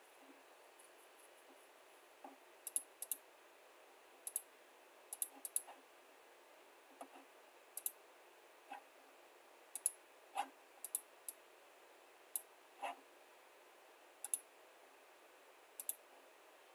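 Computer mouse clicking: single clicks and quick double-clicks at irregular intervals over a faint steady hiss.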